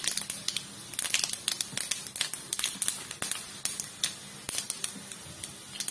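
Mustard seeds spluttering in hot oil in a frying pan, along with cumin and urad dal: irregular sharp pops and crackles, several a second.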